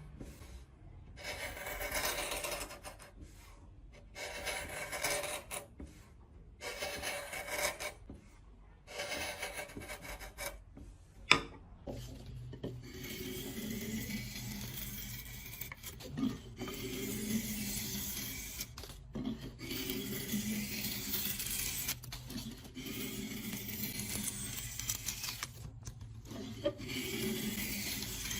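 A hand tool scraping and rasping on wood in repeated strokes, with short pauses between them at first. A single sharp knock comes about 11 seconds in. After that the scraping is nearly continuous over a faint low hum.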